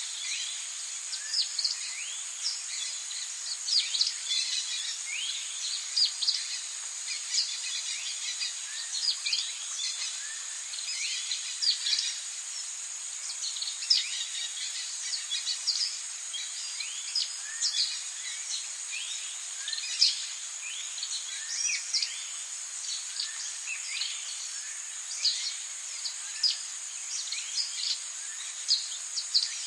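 Tropical birdsong: many birds giving short, quick chirps and calls, one after another, over a steady high-pitched insect drone.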